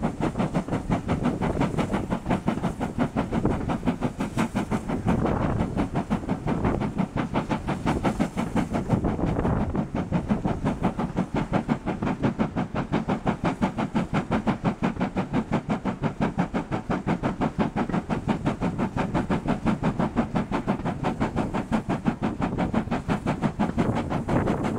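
Ex-GWR steam tank locomotive working hard, its exhaust beats coming fast and evenly, heard from the leading coach along with the running noise of the train on the rails.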